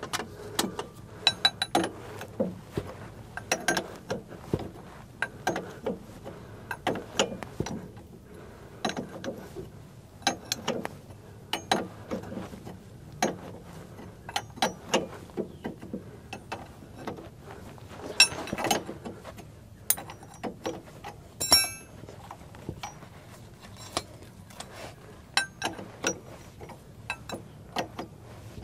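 Hand wrench working the bottom mounting nut off a semi truck's rear shock absorber: a run of irregular metallic clicks and clinks, some much sharper and louder than the rest.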